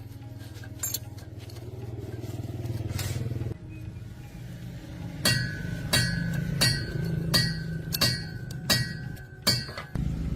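A steady low engine hum, then, from about five seconds in, about seven evenly spaced hammer blows on steel, each with a ringing metallic tone.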